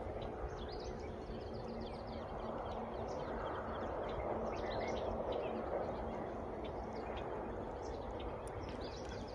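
Small birds chirping in many short, high calls over a steady background noise.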